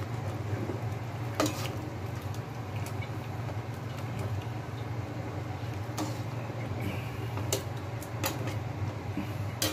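A metal ladle stirring and pressing tomatoes in a stainless steel pot of boiling broth. It clinks sharply against the pot several times, over a steady low rumble.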